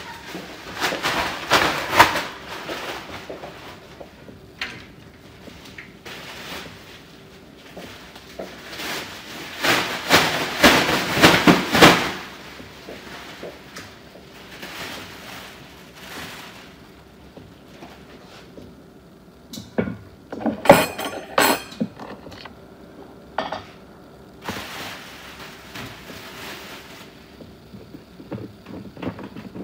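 Kitchen clatter of dishes and utensils: knocking and clinking in four separate bursts, the longest lasting about three seconds.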